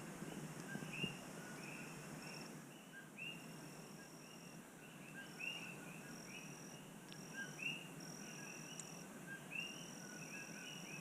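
Chorus of coqui frogs, many calling their two-note "co-qui" over one another, with a high steady insect trill that breaks off and resumes behind them.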